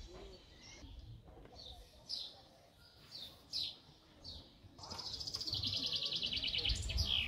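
Songbirds chirping: a few separate falling chirps, then from about five seconds in a fast, dense trill of rapid high notes. A low rumble comes in under it near the end.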